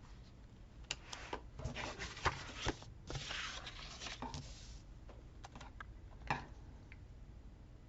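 Paper stickers being handled and pressed onto a notebook page: light paper rustling and rubbing, with scattered soft ticks and taps. The rustling is busiest in the first half.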